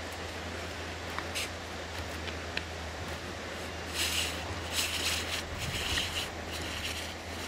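Soft rustling and scuffing on a cloth canvas spread on the ground, louder about four to six seconds in, over a steady low hum.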